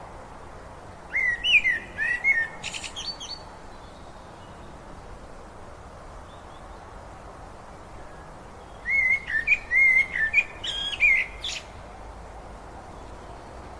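A songbird sings two short phrases of quick chirping, warbling notes, about a second in and again near nine seconds, over a steady rush of river water.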